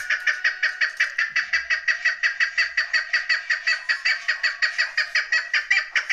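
Chukar partridge calling: a fast, even run of short repeated notes, about six a second, without a break.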